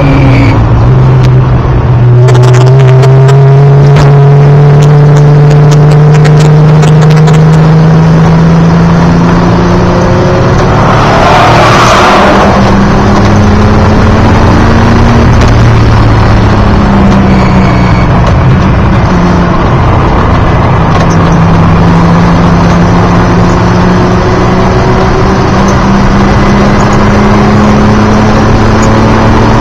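Datsun 280ZX race car's 2.8-litre straight-six, loud, heard from inside the cabin under hard acceleration. The engine note climbs slowly through a long pull, drops about ten seconds in with a brief rush of noise, then climbs again through a second long pull.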